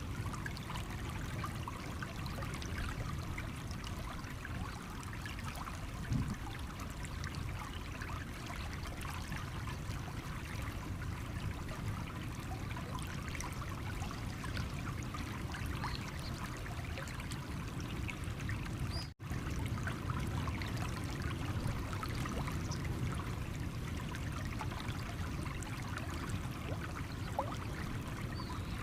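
Stream water running over stones, a steady trickling and babbling with many small splashes. The sound drops out for a split second about two-thirds of the way through.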